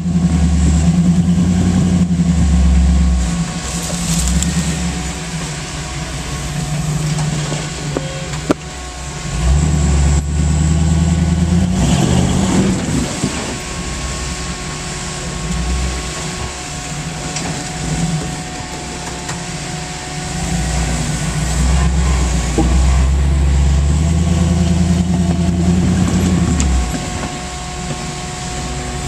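Jeep CJ-6 rock crawler's engine running at low speed, pushed up in several long swells of throttle and eased back toward idle in between as it climbs a rock ledge. A single sharp knock comes about eight seconds in.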